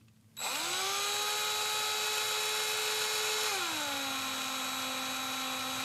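Cordless drill's motor whining as a two-note 'song': it spins up to one steady pitch, then about three and a half seconds in glides down to a lower steady pitch and holds it.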